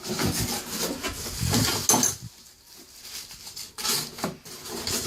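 Rubbing and scraping handling noises from shower valve trim parts being handled, followed by a few light knocks about four seconds in.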